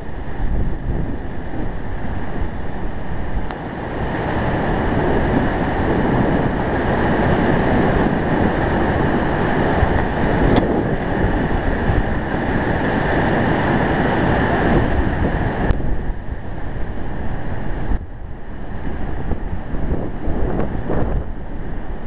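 Pacific surf breaking and washing over rocks in a continuous rushing roar, swelling louder for several seconds mid-way, with wind buffeting the microphone as a rough low rumble.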